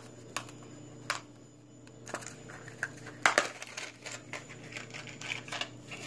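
Clear plastic parts case being handled and opened: a scattered series of sharp plastic clicks, the loudest about three seconds in.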